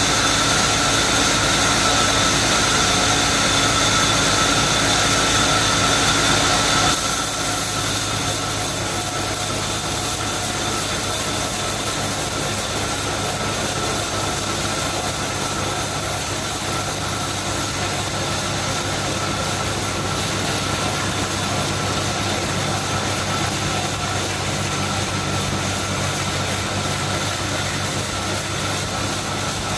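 Sawmill machinery running with a steady hum. About seven seconds in the level drops a step, and it then runs on steadily.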